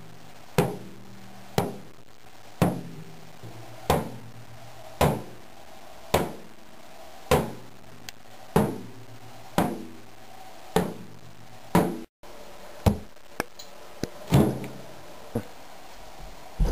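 A drum struck with a stick in a slow, steady beat, about one stroke a second, each hit ringing briefly. A couple of lighter taps come in between the beats about two-thirds of the way through.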